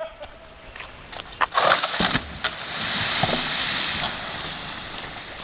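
A felled tree coming down: a few sharp cracks, then a long rushing crash of branches and leaves that swells and fades over a couple of seconds. The tree is falling the wrong way from the intended direction.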